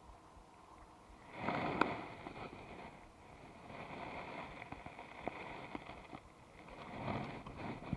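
Rustling and handling noise with a few light knocks as the angler shifts about in the wooden canoe, starting about a second and a half in and easing off before picking up again near the end.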